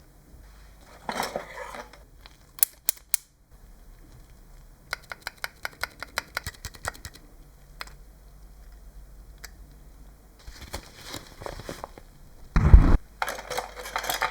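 Sharp metallic clicks and knocks from hands-on work: three crisp clicks, then a quick run of even ticks, some rattling, and a heavy thud with a clatter near the end.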